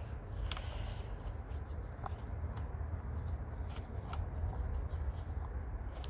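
Hands working the cables of a car door lock mechanism: scattered light clicks and rustling handling noise over a steady low rumble.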